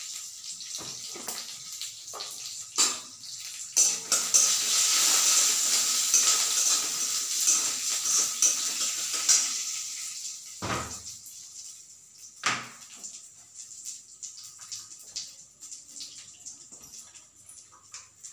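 A tadka of mustard seeds, cumin and curry leaves sizzling in hot oil in a steel kadhai, with a metal spatula knocking and scraping against the pan. The sizzle swells to its loudest in the middle and dies down after about ten seconds, and a couple of sharp spatula knocks come after that.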